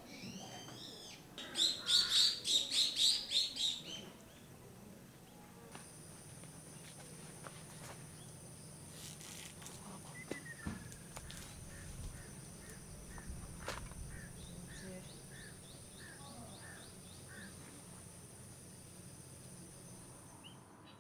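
Birdsong outdoors: a loud burst of rapid, evenly repeated high notes about two seconds in. After it comes a softer series of short chirps, about three a second, over a thin, steady high-pitched tone.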